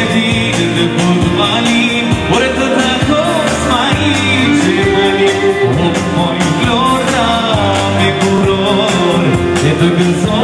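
Live Albanian folk dance music played loud by a keyboard band with a singer, over a steady beat.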